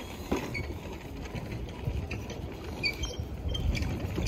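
Wind buffeting the microphone, a low uneven rumble, with a few short, faint high squeaks scattered through it.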